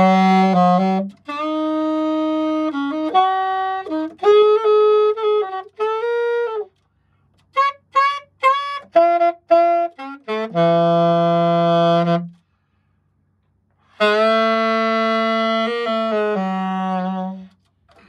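Brand-new Yamaha YAS-280 alto saxophone played solo: phrases of held and moving notes with brief pauses, a run of short detached notes around the middle, and long held notes near the end.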